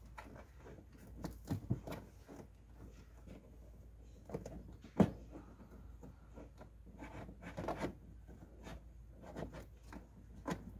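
Plastic trim tool and fingers pushing a thin cable into the gap along a car's headliner and pillar trim: irregular soft scrapes and clicks, with one sharper knock about five seconds in.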